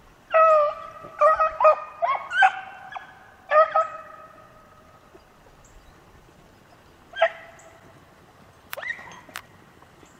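Beagles baying as they work a rabbit's scent track: a cluster of short, overlapping bawls in the first four seconds, one more bawl about seven seconds in, and a brief cry with a couple of sharp clicks near the end.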